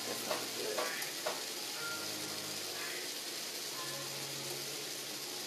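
Ribeye steak and squash frying in hot pans on the stovetop, a steady sizzle, with a few light knocks in the first second or so.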